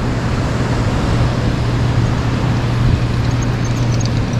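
Steady surf and wind noise at the water's edge: an even hiss with a constant low rumble.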